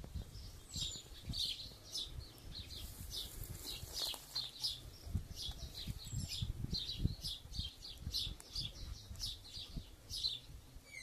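Small birds chirping repeatedly in quick, irregular bursts, with a few thin whistled calls, over a low rumble.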